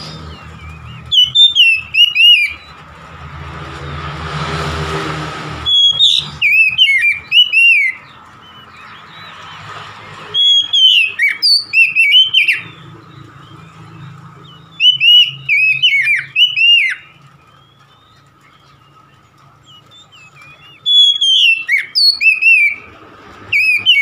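Oriental magpie-robin singing loud, clear whistled phrases of quick rising and falling notes, about six phrases with short pauses between them. A steady low hum runs underneath, and a brief swell of rushing noise comes about four seconds in.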